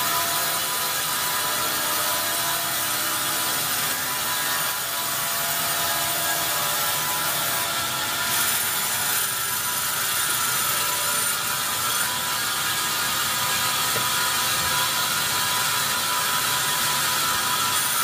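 Band sawmill running with its blade cutting lengthwise through a large pine log: a steady mechanical running sound with a hiss and a few held tones, even in loudness throughout.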